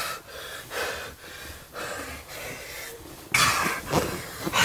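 A person breathing hard in short, rapid breaths, about two a second, louder near the end.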